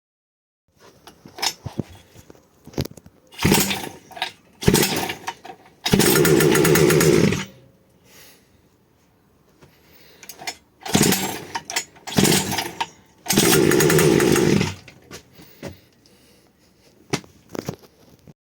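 Small 49cc two-stroke engine being started. It fires in short bursts, and twice runs for about a second and a half before cutting out.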